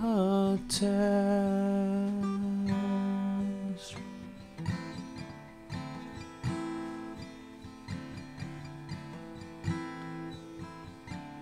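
Acoustic guitar strummed and picked in a slow song. A held sung note carries the first four seconds or so, then the guitar plays on alone.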